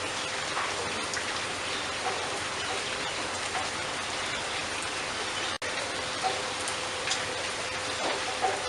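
Steady rain patter, with a brief dropout a little after halfway.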